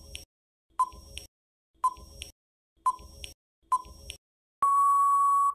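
Quiz countdown timer sound effect: five short ticks about a second apart, each with a brief high ping, then a steady long beep near the end that marks the end of the countdown.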